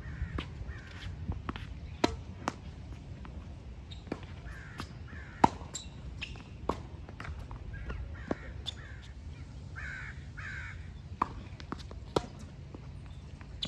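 Tennis rally on a hard court: a sharp pop every one to three seconds as rackets strike the ball and it bounces. A crow caws in the background several times.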